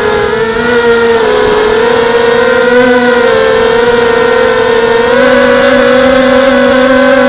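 Whine of a 250-size FPV quadcopter's SunnySky brushless motors and propellers, heard close up through the onboard camera. The pitch wavers with throttle and steps up a little about five seconds in.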